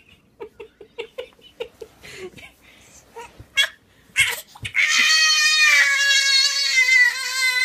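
Infant fussing in short whimpers, with a few short knocks as it tips over backward, then about five seconds in breaking into one long, loud wail whose pitch slowly falls: the start of a temper tantrum.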